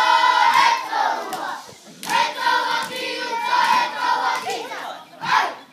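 A group of young children chanting in unison in Māori, kapa haka style, loud phrases broken by short pauses about two seconds in and again near the end.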